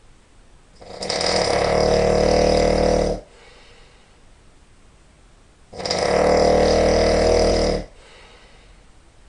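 A person snoring really loud: two snores, each a little over two seconds long, about five seconds apart.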